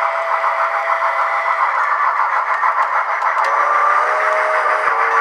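Soundtraxx Tsunami2 sound decoder playing steam-locomotive sound through HO scale models' small speakers: fast, steady exhaust chuffing with a thin, bass-less tone. About three and a half seconds in, a steady tone of several notes comes in and holds.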